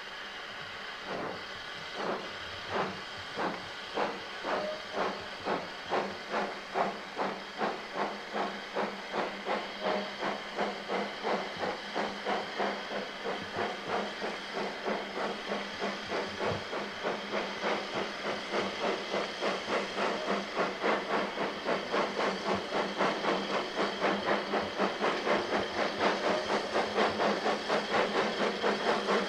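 Narrow-gauge steam locomotive hauling a train of coaches, its exhaust chuffing in even beats over a steady hiss of steam. The beats quicken from under two a second to about three a second and grow steadily louder as the engine approaches.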